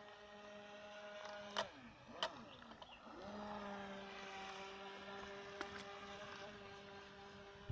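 Direct-drive RC boat's brushed electric motor whining at a steady pitch, heard faintly across the water. About a second and a half in, its pitch dips and wavers, then climbs back to a steady whine just after three seconds, with two sharp clicks during the dip.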